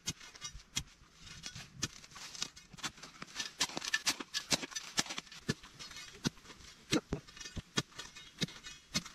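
A narrow metal digging spade chipping and scraping at hard soil around yam tubers, with clods and grit knocking and rattling: an irregular run of sharp clicks and knocks, several a second.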